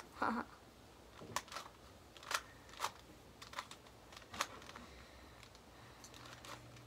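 Plastic 2x2 Rubik's Cube being twisted by hand, its layers clicking and clacking at irregular intervals.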